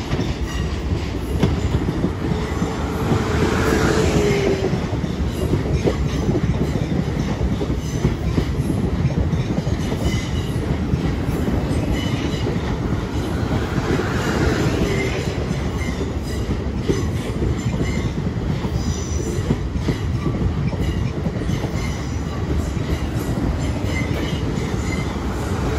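Three coupled Class 450 Desiro electric multiple units, a 12-car train, arriving and running slowly past at a platform, with a steady rumble of wheels on rail. Brief falling squeals come from the running gear about four seconds in and again about fifteen seconds in.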